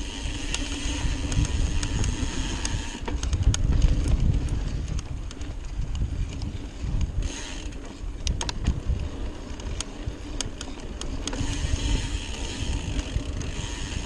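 Trek Fuel EX mountain bike rolling fast over dirt singletrack, with a steady rumble of tyres and wind on the microphone and many rattling clicks from the bike over bumps. A steady ratcheting buzz, typical of a freehub while coasting, is heard for the first few seconds, drops out, and returns near the end.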